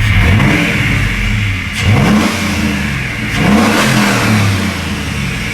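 LS-swapped V8 engine in an S10 pickup running, its throttle blipped twice so the pitch rises and falls about two and three and a half seconds in.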